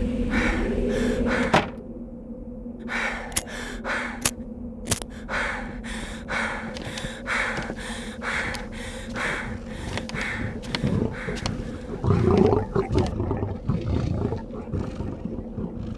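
Layered horror sound effects: a steady low drone under a run of evenly spaced strokes, then a louder, low animal-like growl about twelve seconds in.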